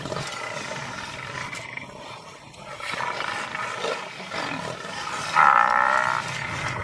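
Lions snarling and growling in a fight, with a loud, harsh animal call about five and a half seconds in that lasts under a second.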